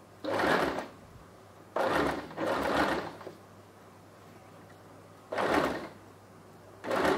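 Electric domestic sewing machine stitching in five short spurts of about half a second each, with pauses between, as fabric is fed slowly around a curved neckline.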